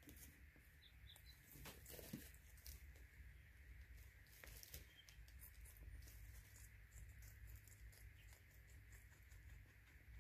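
Guinea pigs eating from a food bowl: faint, irregular crunching and clicking of chewed pellets and vegetables, with light rustling of wood-shaving bedding, over a low steady hum.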